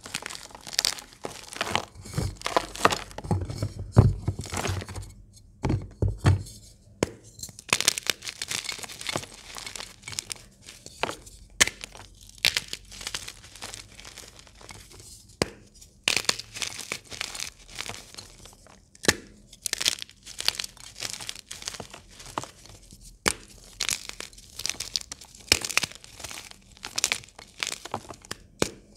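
Blocks of gym chalk being squeezed and crumbled by hand: dense crisp crunching and crackling as the chalk breaks into crumbs and powder, with a sharp snap every few seconds as a block breaks. A few low thumps come in the first several seconds.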